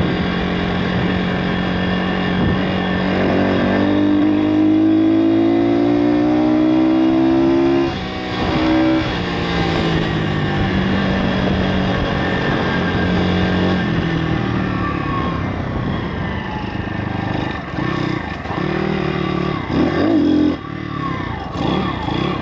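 YX 160cc four-stroke single-cylinder pit bike engine under way on the road. Its pitch climbs steadily for a few seconds, then drops sharply at a gear change about eight seconds in. It runs steady for a while, and the revs rise and fall again near the end.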